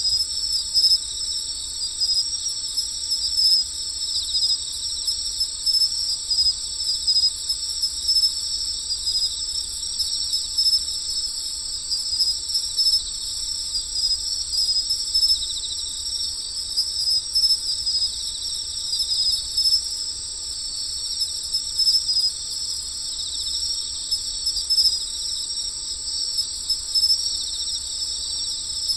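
Crickets chirping in a steady chorus: a continuous high-pitched trill with frequent short louder pulses, and a second, higher steady tone above it.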